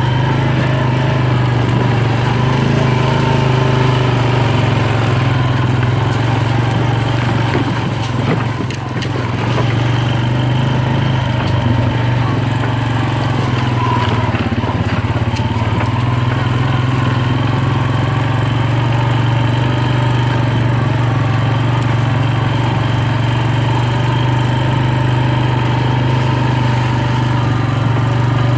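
ATV engine running steadily as it rides along a dirt trail, with a short dip in loudness about a third of the way through.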